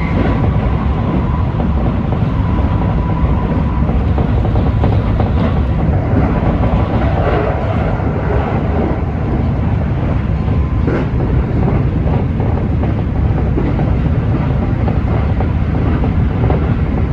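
Keikyu electric train running at speed, heard from inside the front car: a steady loud rumble of wheels on the rails with a few faint clicks from the track.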